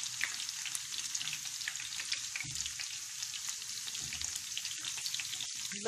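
Sliced onions frying in hot oil in a pan, a steady sizzle dotted with many small crackles and pops, with a slotted spoon stirring through them. The onions are still pale, early in frying toward light golden brown.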